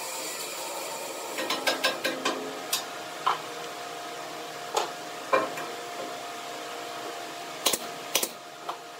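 Light wooden clicks and knocks as small pieces of pine, a thin triangle and short dowel pins, are handled and set down on a pine tabletop: a quick run of taps about a second and a half in, then scattered single knocks, over a steady faint hum.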